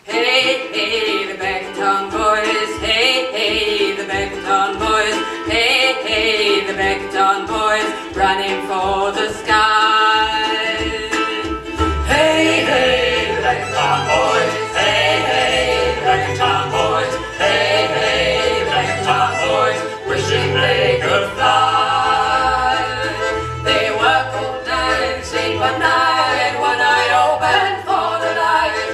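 Live folk band playing a song on accordion, fiddle, tambourine and electric bass, with singing. The music starts at once at the opening, and the bass comes in fuller about twelve seconds in.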